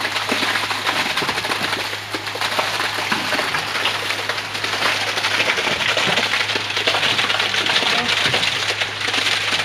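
Petrol-engine concrete needle vibrator running steadily during concrete placement: a constant low engine hum under a dense, crackly noise.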